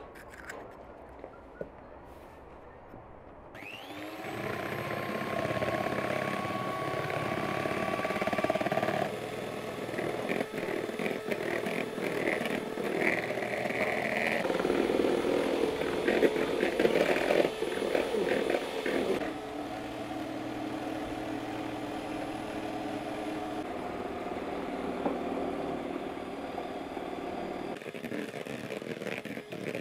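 Electric hand mixer switching on about four seconds in, with a brief rising whine, then running steadily as its beaters whisk egg whites in a bowl. Its pitch and level shift a few times, and it drops back near the end.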